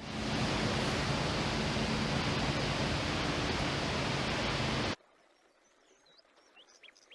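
A loud, steady rushing noise that cuts off suddenly about five seconds in, followed by faint high chirps.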